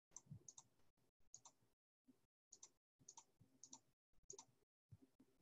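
Faint computer mouse clicks, about eight quick press-and-release double clicks at uneven intervals, as a phone number is clicked in digit by digit on a softphone's on-screen keypad.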